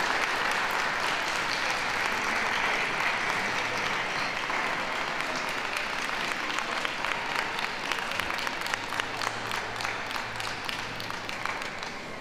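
Ringside audience applauding. The clapping is dense at first, thins to scattered individual claps in the second half, and dies away near the end.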